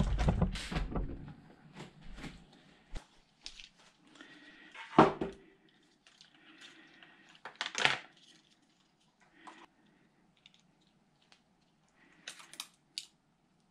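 Small metal parts and hand tools handled on a workbench: a clatter at the start, two louder knocks about five and eight seconds in, and a few light clicks near the end, with quiet handling in between.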